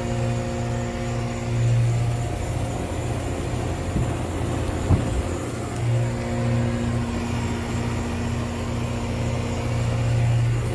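2007 Goodman central air conditioner running, its reciprocating compressor giving a strong, steady hum over the condenser fan's rushing. A couple of faint knocks come about four and five seconds in.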